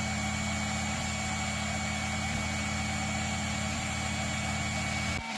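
Tevo Tarantula 3D printer running a print: a steady mechanical hum from its stepper motors and hotend cooling fan, with a thin high whine over it. The sound breaks off briefly near the end.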